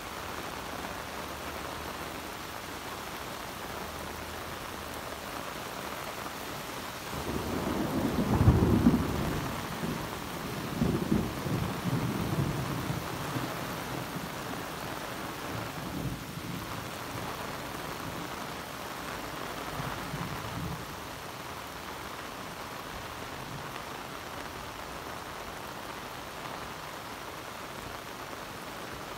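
Heavy rain falling steadily on a wet road and car park. About a quarter of the way in, a roll of thunder builds to a loud low rumble, then fades through a few weaker rumbles.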